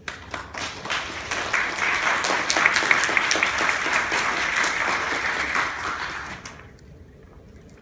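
Audience applauding. The clapping builds over the first couple of seconds and dies away about six and a half seconds in.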